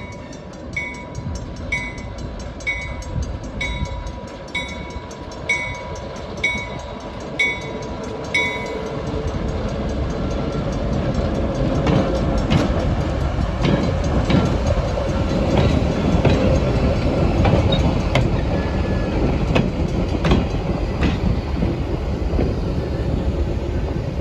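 A bell rings about once a second for roughly the first eight seconds, then stops. A passing train follows: its rumble swells and stays loud, with sharp clicks of the wheels going over the rail joints.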